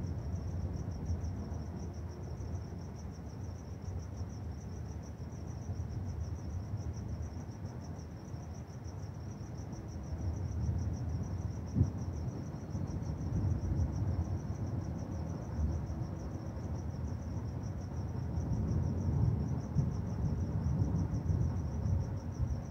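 A cricket chirping in a steady, rapid, evenly pulsed trill over a low rumble that swells and fades, with one sharp click about twelve seconds in.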